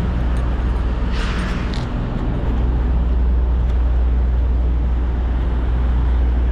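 Semi truck's diesel engine running steadily, a low, even drone, with a brief hiss about a second in.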